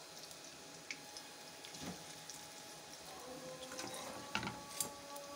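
Battered cauliflower and potato pakoras deep-frying in hot oil in a karahi: a steady sizzle with scattered small pops and crackles, and a few sharper clicks about four seconds in.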